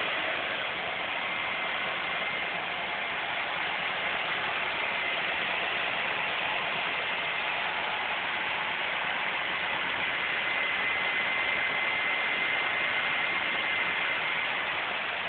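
A 1996 Chevrolet Vortec engine idling steadily, heard close up in the engine bay with its belt-driven accessories turning, and a faint steady high whine above the hiss. It runs smoothly enough to be likened to a sewing machine.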